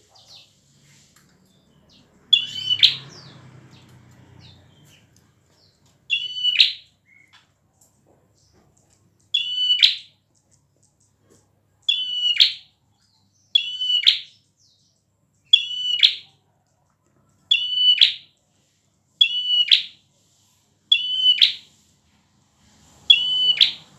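Prinia (prenjak) singing hard: a short, loud, high-pitched phrase repeated about ten times, roughly every two seconds.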